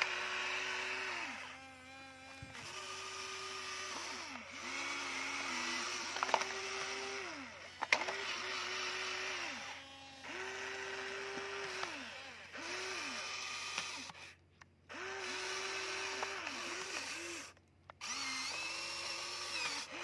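Electric motors and plastic gearing of a Huina radio-controlled toy excavator whirring in repeated spells of one to two seconds as the boom and bucket move, each spell ending in a short falling whine as the motor spins down. A couple of sharp clicks come a little before the middle.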